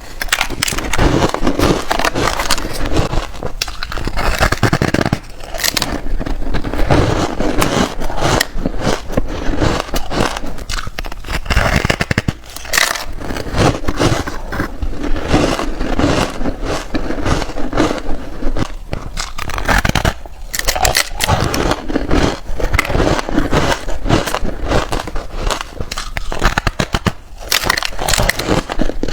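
A person crunching and chewing reshaped, powdery frozen ice close to the microphone: a dense, continuous crackle of bites with a few brief pauses.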